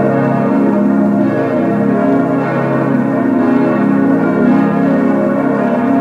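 Full peal of six bronze church bells cast by Schilling in 1958, tuned A♭–B♭–D♭–F–A♭–B♭, all swinging and ringing together in a dense, continuous overlapping clang.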